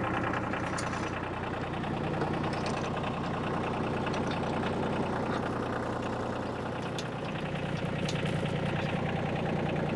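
New Holland tractor's diesel engine idling steadily, with a few faint clicks.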